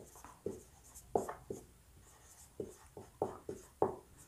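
Marker pen writing on a whiteboard: a string of about seven short, separate strokes of the felt tip across the board as a word is written.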